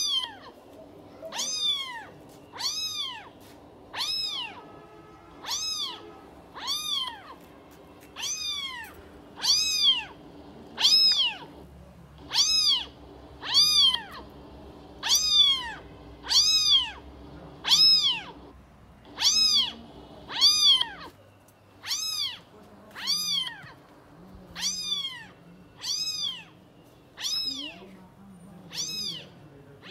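Kitten meowing over and over at a very even pace, about one meow every second and a half. Each meow rises and then falls in pitch.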